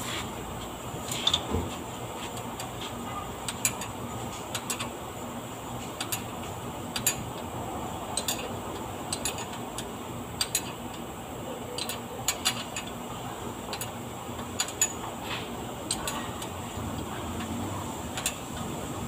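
Hand tools clicking and tapping against metal on a vehicle's underside, about fifteen sharp irregular clicks over a steady low hum.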